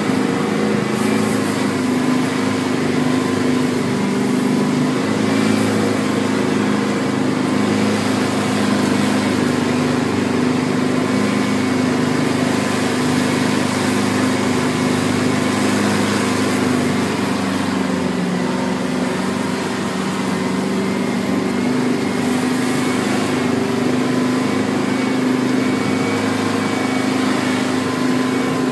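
Land Rover Defender 130's diesel engine running steadily with a constant drone. The engine note eases slightly about two-thirds of the way through, then comes back up.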